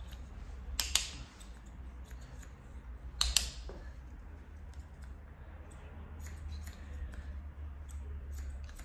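Barber's hair-cutting scissors snipping and clicking through hair: a scatter of light blade clicks, with two louder bursts of cutting about a second in and just after three seconds.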